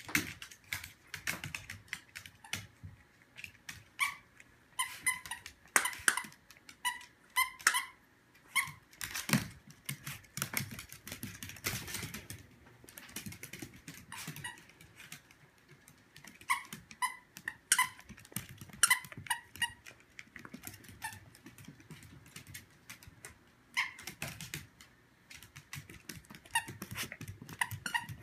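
A dog's squeaky toy squeaking again and again in short runs as the dog bites down on it, with the dog's claws clicking on a hardwood floor.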